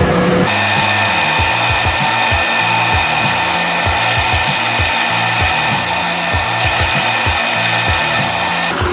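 An electric power tool running steadily with a high whine, over background music.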